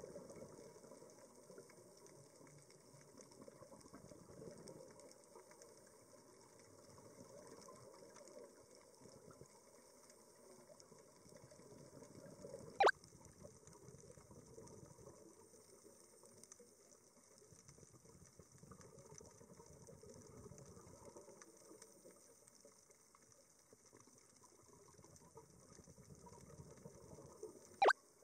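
Underwater ambience picked up by a camera in its housing: a low, steady watery rush that swells and ebbs a little. Two sharp clicks stand out, about 13 seconds in and again near the end, where one shot gives way to the next.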